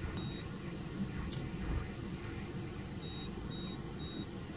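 Car engine idling, a steady low rumble heard from inside the cabin, with short high-pitched electronic beeps: one just after the start and three evenly spaced ones about three seconds in.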